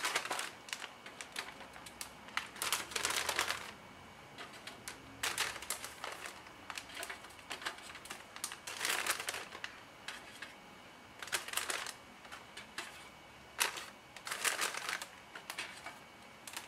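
Clear plastic treat bag crinkling in irregular bursts, about six or seven times, as pieces of chocolate bark are dropped into it.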